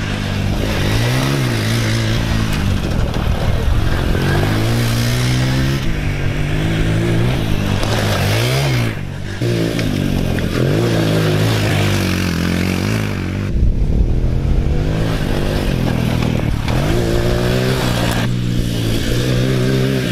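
Quad bike engine being ridden hard, revving up and dropping back again and again every second or two, with a brief drop-off about nine seconds in.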